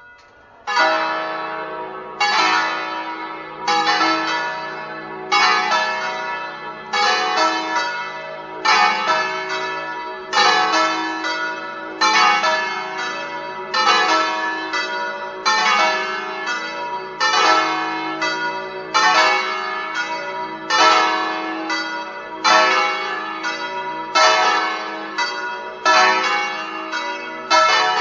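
Full peal of five swinging church bells, cast by Colbachini of Padua in 1948 and tuned E, F-sharp, G-sharp, A and B, ringing together. The bells come in just after the start, then their strikes tumble over one another in a repeating round that swells about every second and a half.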